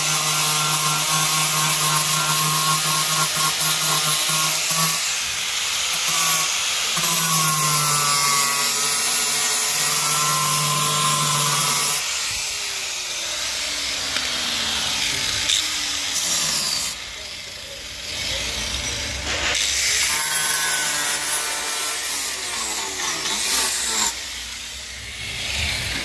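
Angle grinder with an abrasive disc grinding down weld beads on a car's steel sill panel, the motor's pitch dipping as it bites into the metal. About halfway through it is switched off and winds down, then runs again in shorter spells.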